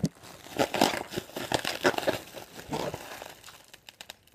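Clear plastic packaging bag crinkling in the hands, a run of irregular crackles that dies away near the end.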